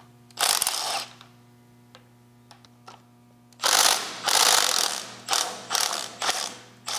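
Red cordless driver spinning a socket on an extension, backing out the bolts of a lathe tailstock's clamp bracket. One short run about half a second in, a few light clicks, then several runs in quick succession in the second half.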